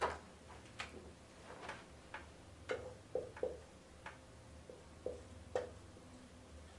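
Dry-erase marker tapping and squeaking on a whiteboard in short, irregular strokes while writing, over a faint steady low hum.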